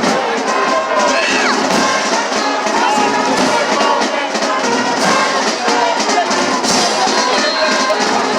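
Band music with brass instruments playing over crowd noise.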